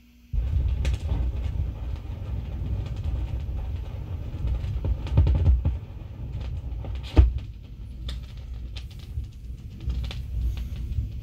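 Stylus of a Gates CB-500 transcription turntable dropping onto a 1950s 16-inch transcription disc, landing with a sudden thump, then riding the lead-in groove before the music: steady low rumble with surface crackle and scattered pops, the loudest pop about seven seconds in.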